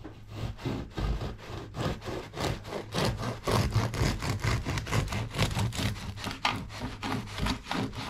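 A knife sawing through the crust of a freshly baked loaf with quick back-and-forth strokes on a wooden chopping board.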